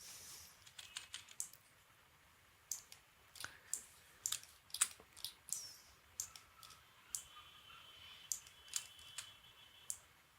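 Computer keyboard and mouse clicking: short, irregular clicks, roughly two a second, sounding faintly.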